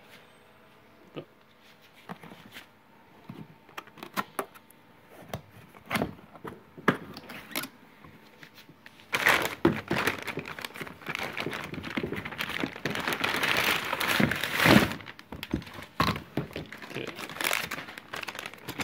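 A cardboard box being opened, with scattered knocks and taps, then from about nine seconds in a long stretch of loud crinkling as hands dig through the plastic bag wrapping the torch and its hose.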